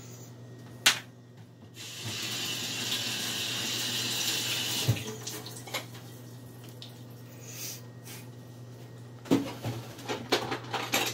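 Kitchen tap running for about three seconds, then shut off abruptly. A sharp knock about a second in, and a run of light knocks and clatters near the end.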